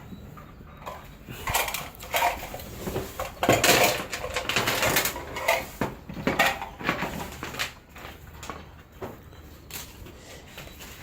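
Irregular clattering and knocking of metal parts being handled, densest in the middle and thinning out toward the end.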